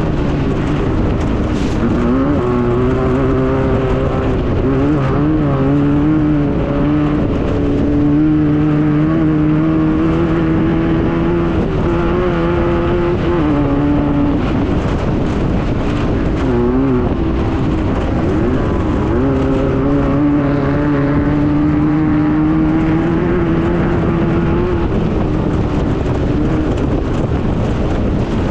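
Class 9 VW desert buggy's air-cooled Volkswagen engine running hard at a mostly steady pitch, with a few brief dips and wobbles in pitch, over a constant rush of rattle and road noise.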